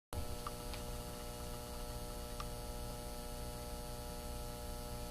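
Steady electrical hum with hiss from the recording's microphone, a few faint short clicks about half a second in and again about two and a half seconds in.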